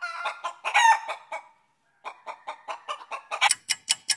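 Hen clucking, a quick run of short clucks with a drawn-out call about a second in. After a short pause comes rapid, even ticking at about six ticks a second, louder from about three seconds in.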